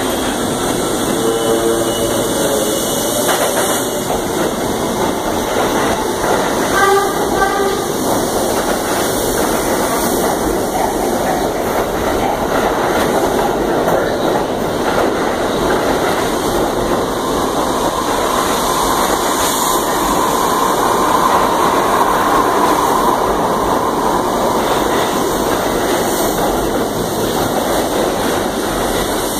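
A New York City subway train of R68 cars running through an underground station without stopping: the steady rumble and rattle of steel wheels over the rail joints, lasting the whole pass. A pitched horn-like tone sounds twice as it approaches, near the start and about seven seconds in.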